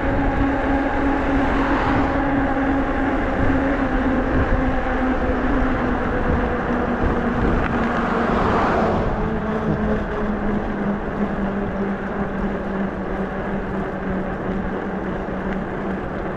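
Nakto F6 electric fat bike riding on asphalt: a steady hum from its drive and fat tyres over wind rush, the hum dropping in pitch about halfway through as the bike slows. An oncoming vehicle passes about eight or nine seconds in.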